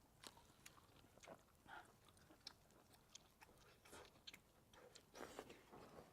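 Faint chewing with scattered small mouth clicks and smacks, some irregular, a little louder near the end.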